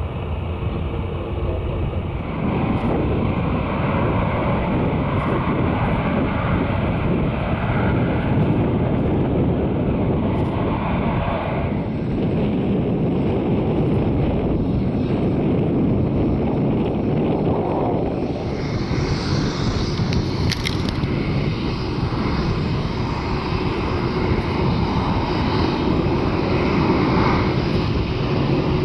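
Boeing 747-8F's GEnx jet engines running loud and steady, heard from outside the aircraft. The noise steps up about two seconds in, and a higher hiss joins it at about 18 seconds.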